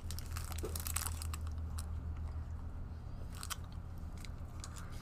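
Close-up chewing and biting on a chocolate-and-caramel candy bar, with scattered crunchy clicks, busiest in the first second and again past the middle, over a steady low hum.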